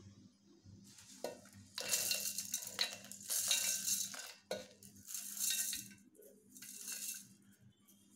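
Roasted makhana (fox nuts) and other dry roasted ingredients tipped from a glass bowl into a stainless-steel mixer jar, rattling against the steel in several pours of about a second each. A few sharp clinks of the glass bowl against the jar come between the pours.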